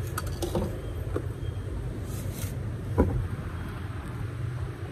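Welding cable and electrode holder being handled on a tiled floor: a few light clicks, a brief hiss, then a single knock about three seconds in, over a steady low hum.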